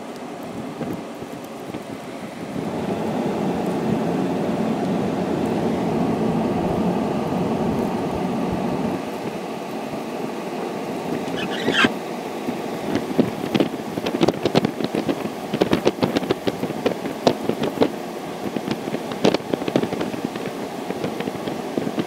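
Blizzard wind buffeting the microphone: a steady rumble that swells for a few seconds, then about halfway through a rapid, irregular run of crackling pops and thumps as gusts hit the microphone.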